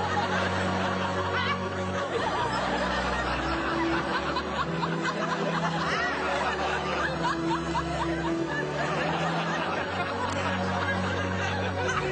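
Studio audience laughing, with background music playing held low notes underneath.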